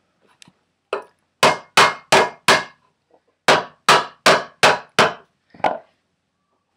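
Rubber mallet striking a block of wood laid over a headset cup, driving the bottom bearing cup into a scooter's head tube. One blow, then four quick blows about three a second, a short pause, five more at the same pace, and a lighter last one.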